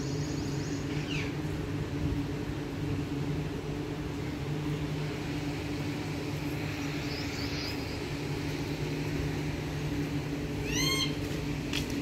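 Indian ringneck parakeet gives a brief high chirp about a second in and a short, harsh screech near the end, over a steady low mechanical hum in the background.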